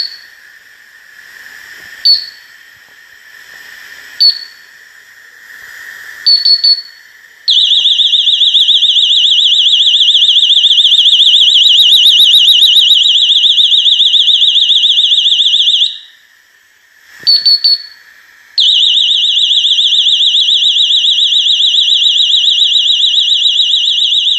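Household LPG gas leak detector's alarm: single short high beeps about every two seconds, then, about seven seconds in, a loud continuous high-pitched alarm tone with a fast warble. The tone breaks off briefly around sixteen seconds, gives a couple of quick beeps, and starts again.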